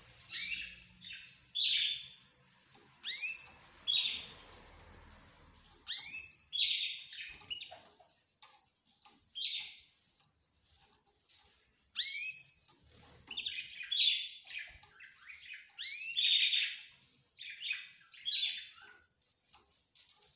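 Small cage birds chirping and calling in a mixed chorus, with short, sharp upward-sweeping chirps coming about once a second.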